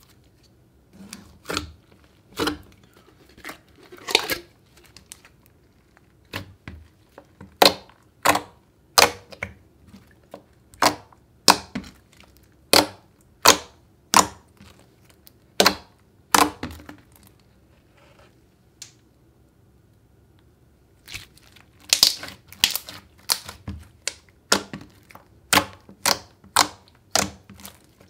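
Thick slime being stretched, folded and squeezed by hand, giving sharp wet pops and clicks about once a second. The pops stop for a few seconds about two-thirds through, then come faster near the end.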